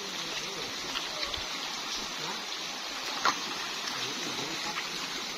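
Shallow stream running over stones: a steady rush of flowing water, with one short, sharp sound about three seconds in.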